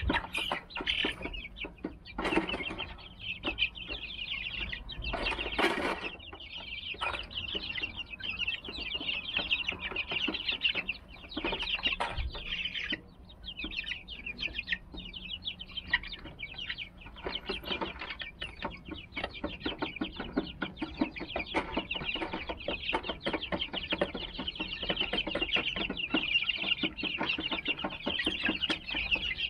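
A flock of young Silver Laced Wyandotte chicks peeping nonstop, many short, high calls overlapping. A couple of brief rustling noises come in the first few seconds.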